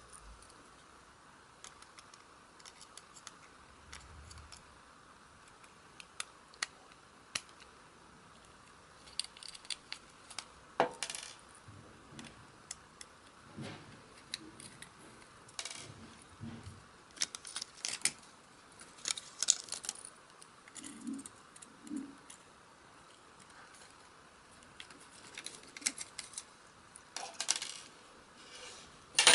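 Irregular small clicks, taps and light clinks of tools and small plastic and metal parts being handled while a dashcam's camera lens is taken out, with a few soft knocks in the middle.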